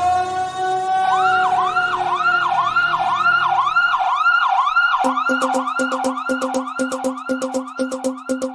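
Siren-like wailing: a steady tone that then breaks into rapid repeating yelps, about three a second. About halfway through, a pulsing beat with a low bass note comes in under it, as in the opening of a music track.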